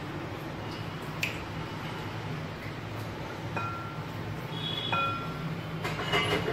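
A spoon and ceramic cup clinking lightly against a glass mixing bowl a few times, short ringing tinks while milk is stirred into crushed biscuits, over a steady low hum.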